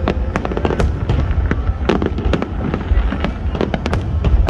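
Aerial firework shells bursting in a rapid, irregular string of sharp bangs and crackles over a low rumble.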